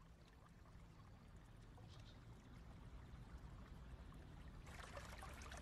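Near silence: a faint low background rumble, with a soft hiss of trickling water fading in near the end.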